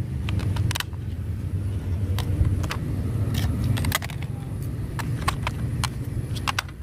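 Hard plastic clicks and knocks as a pink toy airliner is handled and its detachable wing fitted back on, over a steady low rumble.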